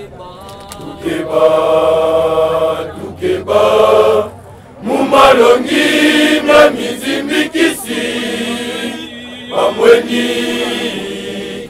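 Men's church choir chanting a hymn together in phrases with short breaks, with a few sharp clicks of wooden stick clappers just under a second in.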